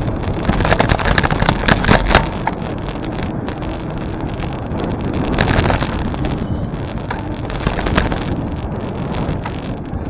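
Wind buffeting the microphone of a camera riding along on a moving bicycle, over a steady rush of road noise, with a few sharp rattling knocks, most of them in the first couple of seconds.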